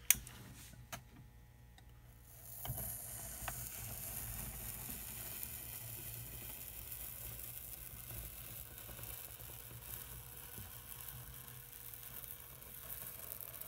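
Hot tip of a soldering gun melting a slot into a foam wing along a steel ruler, a faint steady sizzle that starts about three seconds in. A sharp click comes right at the start.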